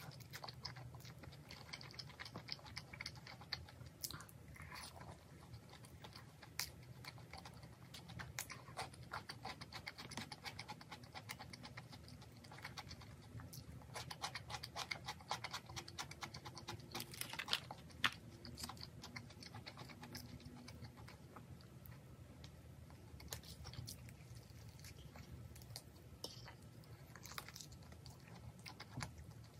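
Close-up eating sounds of a person chewing crispy fried chicken with sliced raw onion: wet chewing with many small crunches and crackles, a few sharper crunches in the middle.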